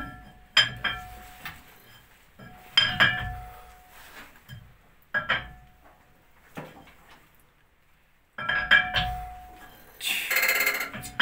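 Metallic clanks and clinks with a short ringing after each, from controls and fittings of an old slow-running tugboat diesel being worked by hand as it is set up for starting. Several separate strikes are followed, near the end, by two longer, louder rattling stretches of about a second each.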